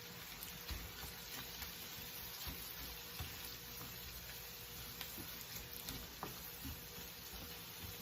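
Vegetables sizzling steadily in a hot buttered pan as they are stir-fried, with light scattered taps and scrapes of the stirring utensil.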